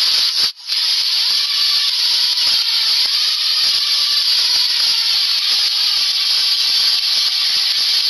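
Loud, steady hissing noise with a brief break about half a second in.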